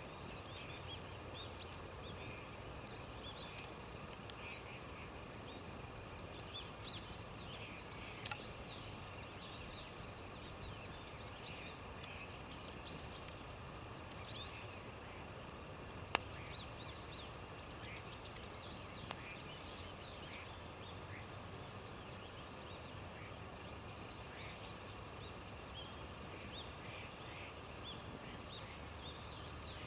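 Birds chirping in woodland, many short scattered calls over a steady background hiss, with two sharp clicks about sixteen and nineteen seconds in.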